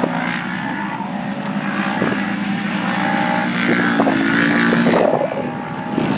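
Off-road race vehicle engines running and revving, swelling to their loudest about five seconds in.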